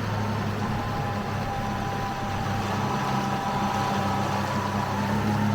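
A 10 hp electric boat outboard running steadily: a low hum with a fainter higher whine over it, and a steady hiss of wind and water.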